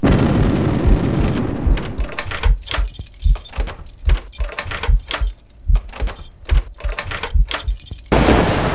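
A fast, irregular run of loud thumps and crashes, with a denser noisy clatter near the end.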